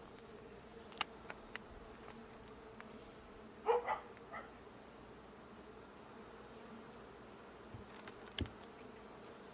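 Honey bees buzzing steadily around an open hive, with a few sharp clicks and knocks and a short, loud pitched call in two or three parts about four seconds in.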